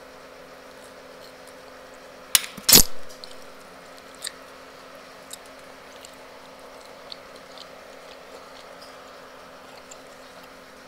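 Metal spoon and fork knocking against a ceramic plate twice in quick succession about two and a half seconds in, the second knock loud with a brief ring. Faint scattered ticks of eating by hand and chewing follow.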